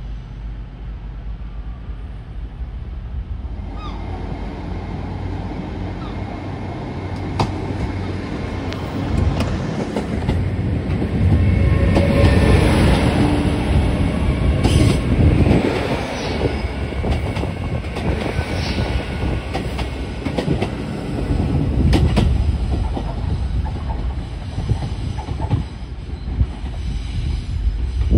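Diesel train moving through a station with a steady low rumble, its wheels clicking over rail joints and squealing now and then. It grows louder from a few seconds in, is loudest around the middle, and stays loud to the end.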